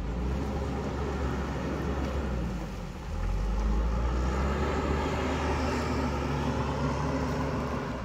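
JCB backhoe loader's diesel engine running steadily with a low drone, growing louder about three seconds in as the machine works under load, pushing soil to level the road.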